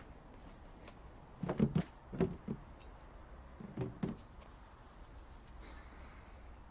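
Quiet outdoor background with a few soft thumps and shuffles, about one and a half, two and four seconds in, as a man moves in and leans back against a car's body.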